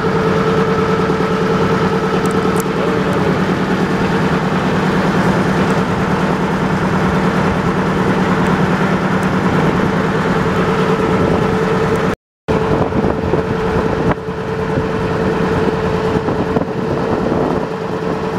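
Motor boat's engine running steadily under way, a constant hum with a rushing noise over it. The sound breaks off for a split second about twelve seconds in, then the same running carries on.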